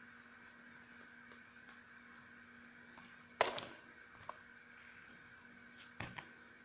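Small clear plastic data-logger case handled and worked open by hand, giving a few sharp plastic clicks. The loudest is a quick pair about halfway through, with lighter clicks after it and near the end, over a faint steady hum.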